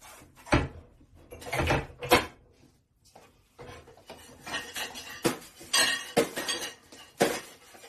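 Dishes and cutlery clinking and knocking together in a kitchen sink during washing up, in irregular sharp clatters.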